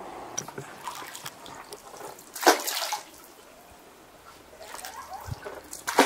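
Water sloshing and splashing around a small wooden rowboat as it is pushed off the bank into the river, with one louder splash about two and a half seconds in.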